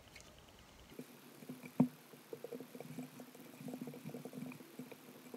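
Silicone spatula spreading and pressing thick, sticky cornflour halwa into a glass baking dish: a run of soft irregular clicks and scrapes, with one sharper click a little under two seconds in.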